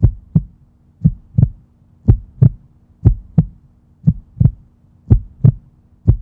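Heartbeat sound, lub-dub double thumps repeating about once a second, over a faint steady hum.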